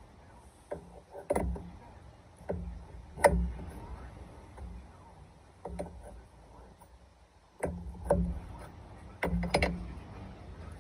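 Irregular metal clinks and knocks of a wrench on the fittings of a truck air brake chamber as it is worked loose and swapped for another wrench, the loudest knock about three seconds in and a quick cluster near the end.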